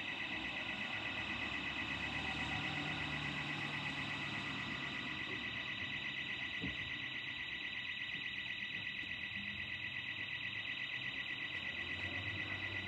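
Burglar alarm sounding: a continuous, high-pitched electronic tone that pulses rapidly.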